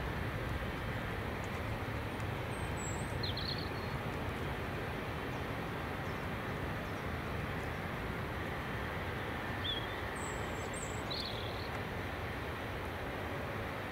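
Steady, distant rumble of a Boeing 777's jet engines at low power as the airliner taxis onto the runway. A bird chirps briefly twice over it, about three seconds in and again about ten seconds in.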